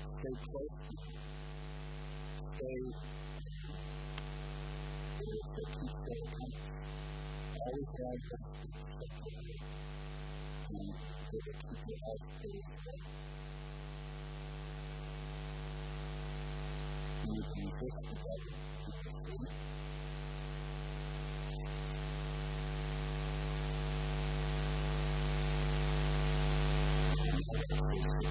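Steady electrical mains hum with a hiss that grows gradually louder, with faint, broken sounds coming and going on top.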